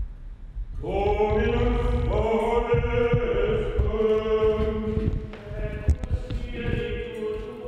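Liturgical plainchant sung in held, sustained notes, beginning about a second in, over a low rumble.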